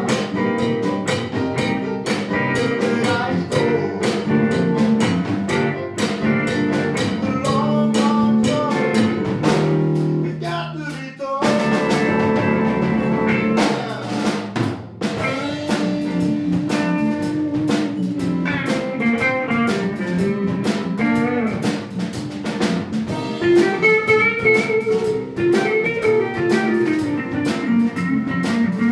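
Blues band playing an instrumental passage: electric guitar over electric bass guitar and drum kit, with no singing.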